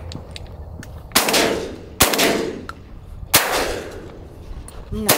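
Shotguns firing at incoming doves: four blasts spread over about four seconds, each trailing off in a long fading tail.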